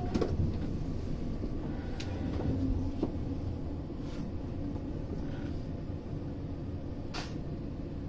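Train running: a steady low rumble with a few faint clicks, and a short hiss about seven seconds in.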